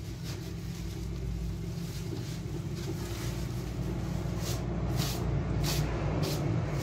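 Electric bakery dough mixer running with a steady low hum while flour is emptied from a sack into its bowl; in the second half the sack is shaken, giving a run of short swishing rustles about twice a second.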